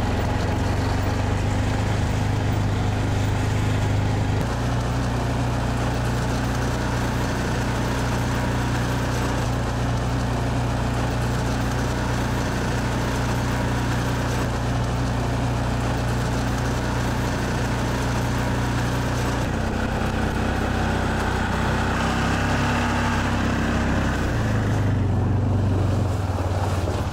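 Arctic Cat ATV engine running steadily while it tows a trailer loaded with maple logs. Its note changes a few times along the way.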